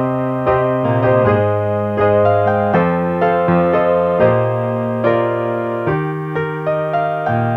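Background music: a slow, gentle piano or electric piano melody with sustained chords.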